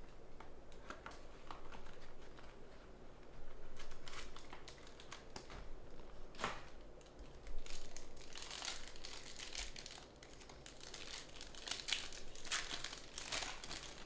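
Hands opening a trading-card box and the foil pack inside it: the foil wrapper crinkling and tearing in a run of sharp crackles, sparse at first and much denser through the second half.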